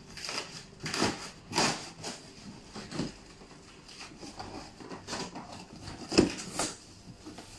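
Cardboard bicycle box being opened by hand: flaps pulled up and rustled, with scattered scrapes and knocks of the cardboard, the loudest about six seconds in.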